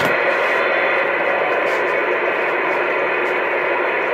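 Steady rushing static from an 11-meter radio's speaker tuned to 27.285 MHz AM, band noise heard between transmissions, with a faint click at its start.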